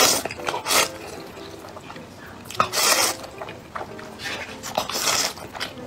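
A person loudly slurping noodles: four wet sucking slurps, the last two long, about two seconds apart.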